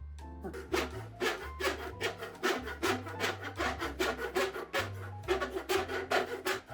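Hand tool working wood in quick, even rasping strokes, about four a second, over background music with a low bass line.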